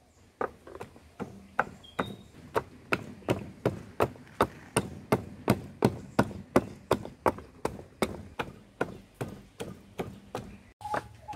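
Wooden pestle pounding garlic cloves in a small wooden mortar: a steady run of hollow wooden knocks, about three a second.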